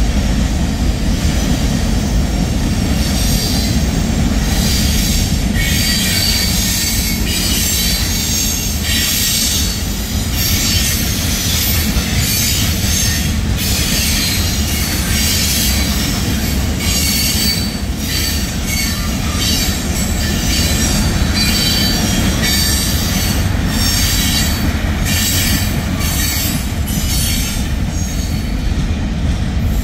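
Freight train cars rolling past at speed: a steady low rumble of steel wheels on rail, with high-pitched metallic squealing that comes and goes through most of the passage.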